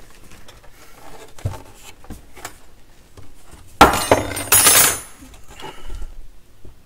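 Dual CS 607 turntable's plastic housing clattering as it is turned over and set down on a wooden bench: a few faint knocks, then a loud rattling clatter in two quick bursts about four seconds in.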